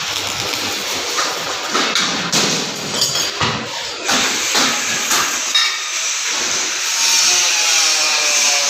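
Construction work noise: a run of sharp knocks and clatter, then a steady high whirring noise from about seven seconds in.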